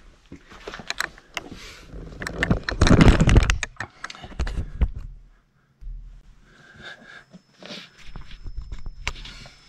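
Handling noise from the camera being carried and set down on a concrete floor: scuffs, clicks and knocks with footsteps, loudest as a rustling scrape about three seconds in, then lighter scrapes.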